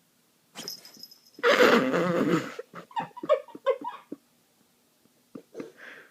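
An animal's loud, harsh outburst about a second and a half in, followed by a quick run of about six short calls, with two brief calls near the end.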